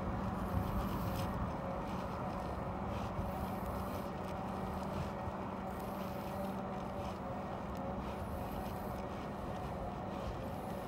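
Groove e-Ride electric bike in motion: steady wind on the microphone and tyre noise on pavement, with a steady hum from the bike's motor.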